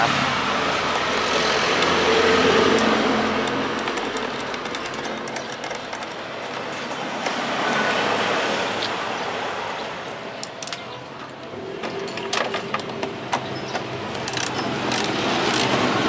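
Road traffic passing in slow swells that rise and fade. From about ten seconds in come light clicks and taps of wiring and a screwdriver being handled.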